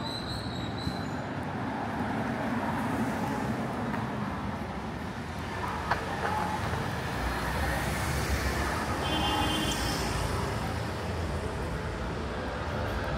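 Street traffic: cars and motor scooters passing on a city street with a steady road noise, one car passing closer and a little louder around the middle, and a single short click about six seconds in.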